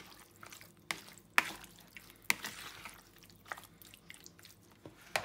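Silicone spatula stirring marinated chunks of boneless chicken in a plastic bowl: a handful of short, wet squelches and light clicks, irregularly spaced.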